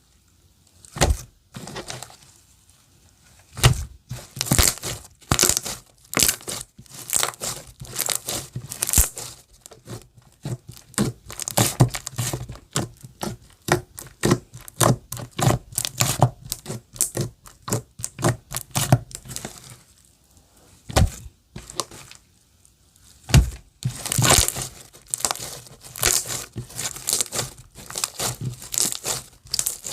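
Clear slime being played with by hand, giving a fast run of crackling pops and clicks with a few brief pauses.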